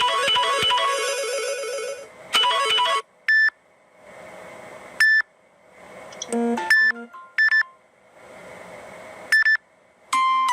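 Samsung Galaxy Tab S2 ringtones playing from the tablet's speaker. A melodic electronic ringtone plays for about the first two seconds with a short repeat of it just after. Then come separate short snippets of a few notes or single beeps, each cut off after a fraction of a second, about every one to two seconds.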